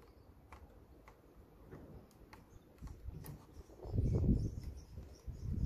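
Faint scattered clicks and scratches of a fingernail picking at the red liner on a strip of 3M VHB double-sided tape, trying to lift its edge, with a low rumble about four seconds in.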